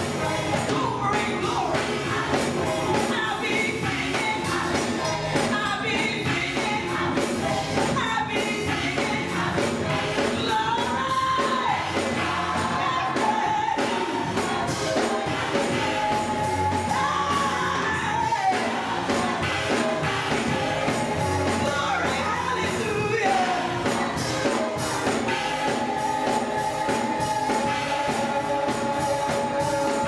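Gospel choir and a lead singer on a microphone singing, backed by a Yamaha electronic keyboard, with hand claps keeping the beat. The lead holds several long notes.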